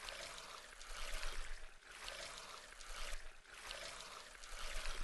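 Faint water sound effect, a rushing pour that swells and eases about three times.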